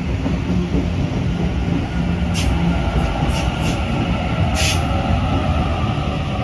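Passenger train moving at a station platform, a loud steady rumble with four short hisses between about two and five seconds in.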